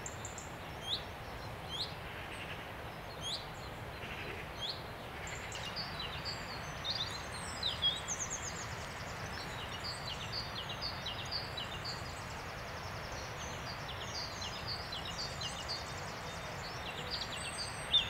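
Small songbirds chirping in woodland over a steady background hiss: a few short rising chirps spaced about a second apart at first, then a busier mix of chirps and quick trills from about six seconds in.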